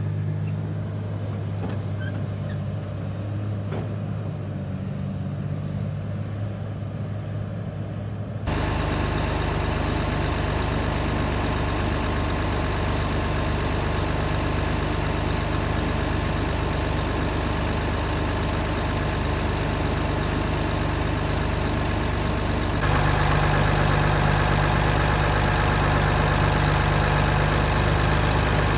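2011 Komatsu PC350LC-8 excavator's turbocharged six-cylinder diesel engine running at a steady speed. It is heard from behind the machine at first, then louder and closer at the open engine bay about 8 seconds in, and louder again at the exhaust stack near the end.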